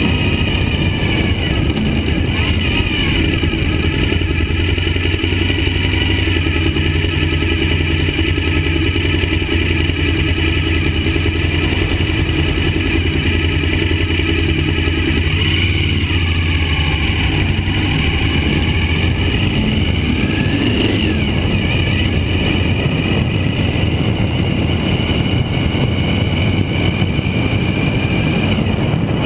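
Suzuki V-Strom 1000's V-twin engine running steadily under way, heard from the bike itself. About halfway through, the engine note drops and then climbs again.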